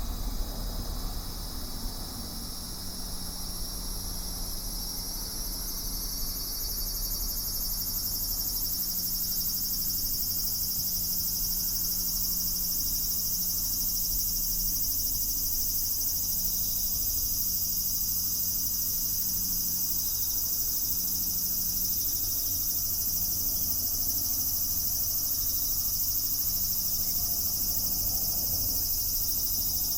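Cicadas singing: a dense, steady high-pitched buzzing drone that swells over the first several seconds, then holds at full strength.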